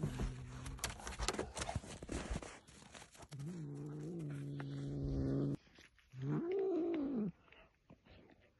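A cat's long, low yowls, three drawn-out calls with the last one rising and falling, with scattered crunching clicks between them from a dog gnawing a bone.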